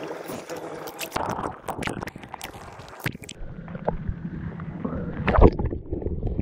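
Lake water lapping and splashing right at a waterproof action camera floating at the surface, with crackling droplet hits at first. A little past three seconds the sound turns muffled and rumbling as the waterline covers the microphone, with a louder splash a bit past five seconds.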